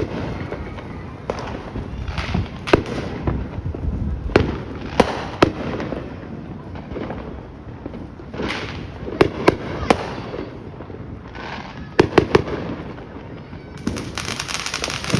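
Consumer fireworks going off: scattered sharp bangs, some in quick pairs and triples, with a dense hissing crackle starting near the end.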